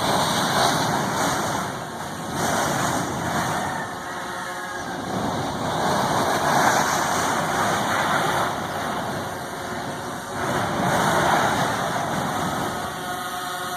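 Kilauea lava fissure erupting, a loud continuous rushing noise like a blowtorch that surges louder and eases again several times.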